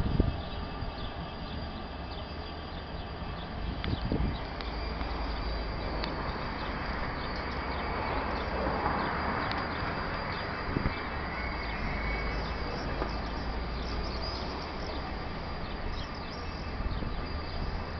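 Renfe class 334 diesel locomotive rumbling at low speed as it propels two coaches backwards through the yard, with scattered light high clicks over a steady noisy background.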